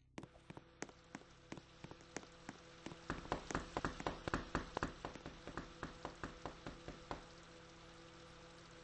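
Microwave oven running with a steady hum under a rapid train of sharp clicks, about four to five a second. The clicks grow louder midway, then fade and stop about seven seconds in, leaving only the hum.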